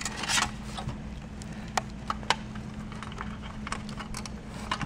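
Scattered light clicks and rattles as a car stereo receiver's wiring harness and plastic RCA plugs are handled, over a faint steady hum.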